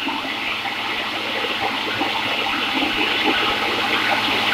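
Countertop blender running steadily, its motor whirring at a constant pitch as it churns milk, banana and ice cream into a smoothie.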